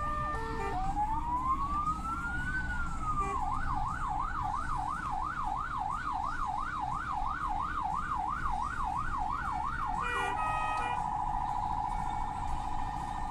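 Ambulance sirens. A stepped multi-tone pattern gives way about a second in to one slow wail rising and falling. Then comes a fast yelp sweeping up and down about three times a second, two short horn blasts around ten seconds in, and after them a rapid warble on a single pitch, over low road noise.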